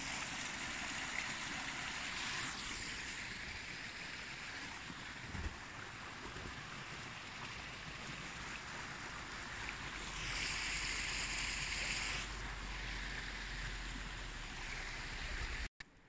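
Snowmelt water running steadily as a continuous rushing noise. It grows louder and brighter for about two seconds, roughly two-thirds of the way through.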